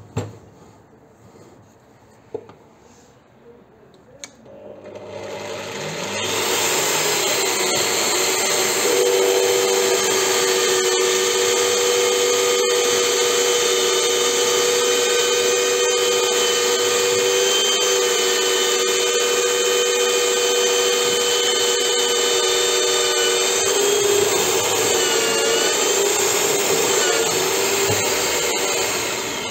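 Bench drill press with a step drill bit cutting through 5 mm steel plate. The motor starts about four seconds in and runs with a steady whine while the bit cuts. The pitch wavers a few seconds before the end, and the sound then dies down.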